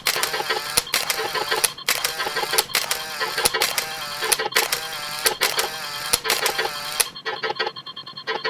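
Camera shutter snap sound effects repeated rapidly in a dense run, thinning out for a moment near the end.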